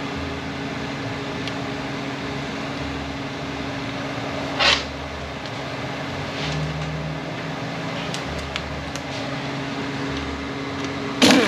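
Steady hum of shop machinery with a low, slowly pulsing throb, and a short hiss about halfway through. Near the end a pneumatic ratchet gives a short, loud burst, running down the 8 mm bolt of the transmission's speed sensor.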